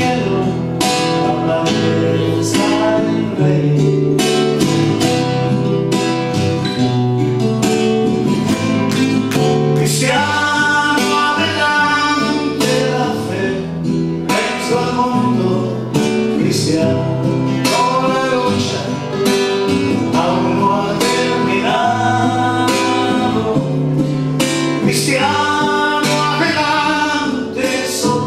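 Two nylon-string acoustic guitars playing a song, strummed chords under a picked melody line, with a man singing at times.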